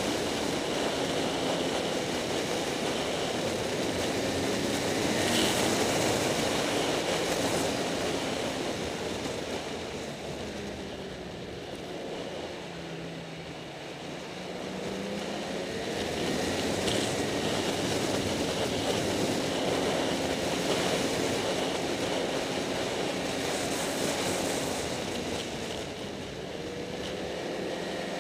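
Snowmobile engine running under way, its pitch and loudness rising and falling with the throttle, easing off about halfway through and climbing again, over a steady rush of wind and track noise.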